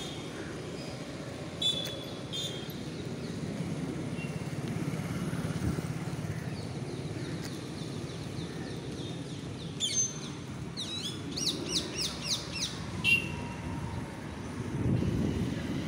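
Birds chirping: two short chirps near the start, then a run of quick, sharply falling chirps from about ten to thirteen seconds in. Underneath is a steady low rumble of distant road traffic.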